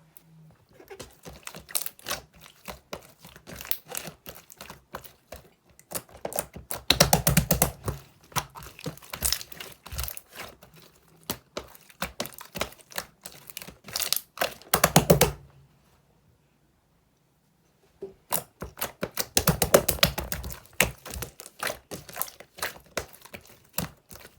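Rapid, irregular sharp clicks and taps in bursts, with a louder, denser flurry three times and a pause of about two seconds past the middle.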